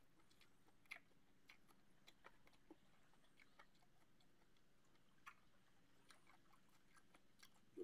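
Near silence, broken by faint scattered clicks and chewing as a person eats shellfish by hand, picking meat from the shells.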